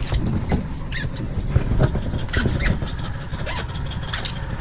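Steady low rumble aboard a small fishing boat, with scattered clicks, knocks and a few short squeaks as a freshly caught cod is handled for measuring.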